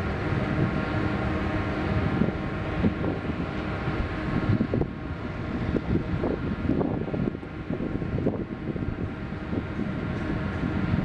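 Wind buffeting the microphone in uneven gusts, over a steady mechanical hum made of several held tones.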